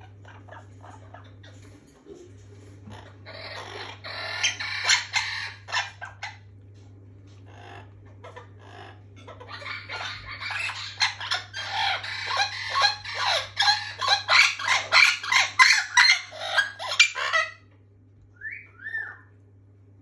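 A parrot calling in two loud bouts of rapid, repeated squawks, the longer one from about ten seconds in until near the end, at roughly three calls a second. Two short rising whistles follow.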